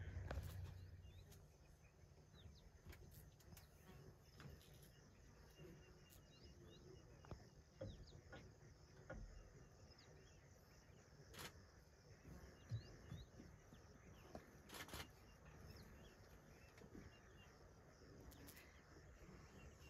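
Quiet open-air ambience: faint, scattered bird chirps and insect calls, with a few sharp clicks. A low rumble fades out in the first second or two.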